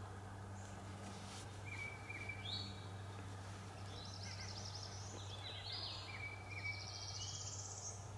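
Songbirds singing: several short chirps and high trilling phrases, over a steady low hum.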